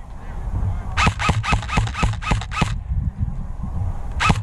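Airsoft guns firing in a quick string of about eight shots at roughly four a second, then one more shot near the end, over low wind rumble on the microphone.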